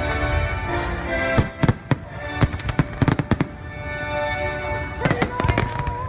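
Aerial fireworks shells bursting in a rapid, irregular string of bangs over the fireworks show's music.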